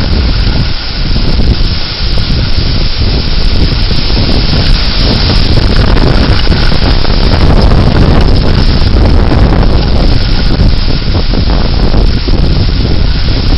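Damaging severe-thunderstorm wind, gusting to about 55 mph, buffeting the microphone with a loud, steady rushing. It dips briefly twice near the start.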